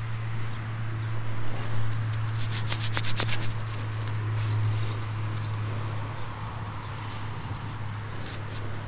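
Gloved fingers rubbing soil off a freshly dug copper half penny, a soft scratchy rubbing with a quick run of fine scratches about two and a half to three and a half seconds in. A steady low hum runs underneath.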